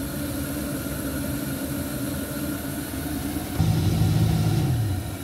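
Handheld electric vacuum cleaner running steadily with its nozzle in a car's cabin filter housing. About three and a half seconds in, a deeper, louder hum comes in for about a second, then drops away.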